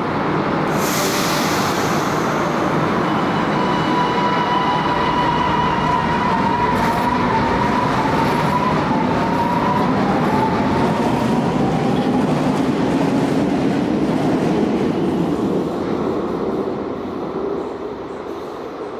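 Milan Metro Line 1 train of original Socimi/Stanga cars pulling out and running past. There is a brief hiss about a second in, then a steady rumble of wheels on rail under a motor whine that climbs a little in pitch as the train gathers speed. The noise fades over the last few seconds as the train leaves.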